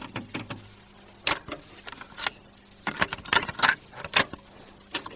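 A series of irregular sharp clicks and taps over a faint steady low hum, coming thicker and louder in the second half.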